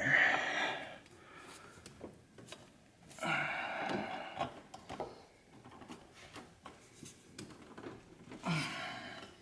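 Rubbing, scraping and light knocks as a wrinkle-finish intake tube is worked by hand into place among engine-bay hoses and panels, in three spells of handling with small clicks between.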